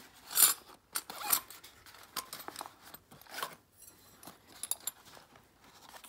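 Small black fabric tool-kit pouch being handled and unzipped: a few short zipper rasps and rustles, the loudest about half a second in.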